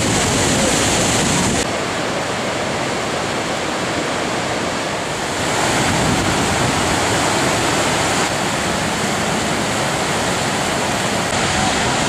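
Steady rushing of white water from Niagara Falls and the rapids of the Niagara River, with wind buffeting the microphone. The sound changes abruptly about two seconds in and again about halfway through.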